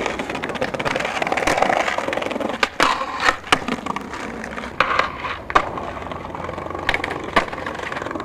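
Skateboard wheels rolling on stone paving, with several sharp clacks of the board being popped and landed in flatground tricks.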